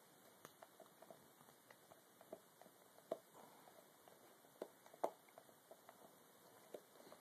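Dog nibbling and chewing at its own claws: faint, irregular little clicks and crunches, with a few sharper ones about three, four and a half and five seconds in.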